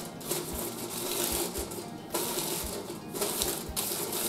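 Aluminium foil crinkling and crackling as it is pressed and folded down around the rim of a stainless steel mixing bowl.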